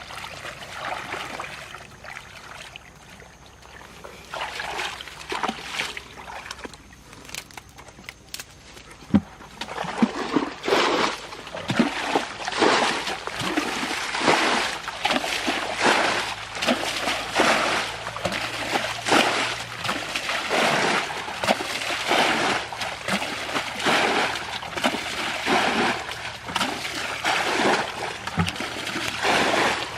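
Water splashing and sloshing in irregular strokes, sparse at first, then coming thick and fast and louder from about ten seconds in.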